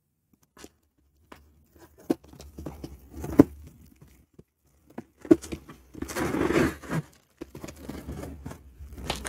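Cardboard shipping box being opened by hand: packing tape picked at and peeled back, then the cardboard torn along the taped seam, with scrapes and small knocks. The loudest, longest tearing comes about six seconds in.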